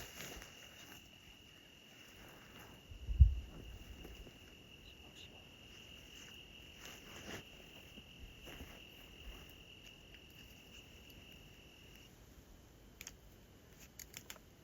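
A cricket trills steadily on one high pitch and stops about twelve seconds in. There is a brief low thump about three seconds in.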